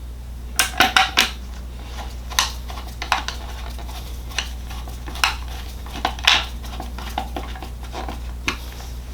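Small metal hardware, washers, washer magnets and screws, clicking and clinking as it is handled: a quick run of clicks about half a second in, then single clicks every second or so.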